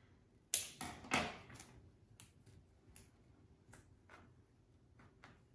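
Dry genista stems being handled and pushed into the wreath: two sharp crackles about half a second and a second in, then scattered light clicks and rustles.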